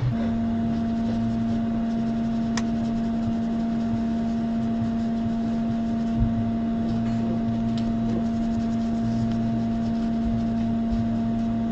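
Steady electric hum with a low, even tone from bench equipment. There is a sharp tick about two and a half seconds in and a soft knock about six seconds in.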